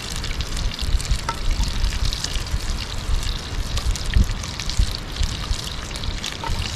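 Butter and Brussels sprouts sizzling in a cast-iron skillet over a campfire, a steady hiss with scattered crackles, and a few soft knocks of a knife cutting sprouts on a wooden board.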